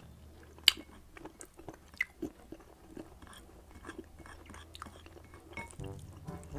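Close-up chewing and mouth sounds of a person eating rice and pork belly in coconut-milk sauce by hand: irregular soft wet clicks and smacks, with a sharp click under a second in and another about two seconds in.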